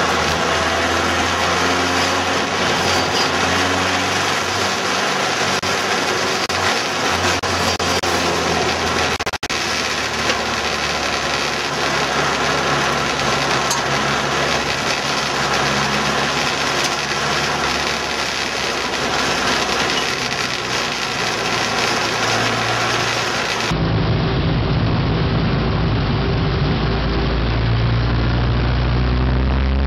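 Race car engines running loudly. About three-quarters of the way in the sound changes abruptly to a deeper, closer engine note whose revs rise in steps near the end.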